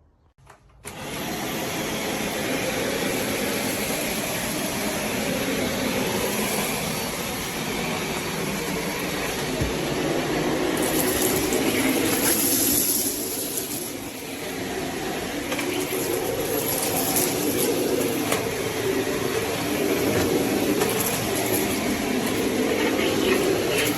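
Bagless canister vacuum cleaner switched on about a second in and running steadily with a high whine, its sound changing briefly around the middle as the suction airflow shifts.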